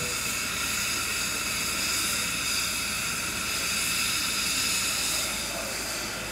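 Steady hiss of steam from an LMS Ivatt Class 2MT 2-6-2T tank locomotive standing still, its safety valves blowing off.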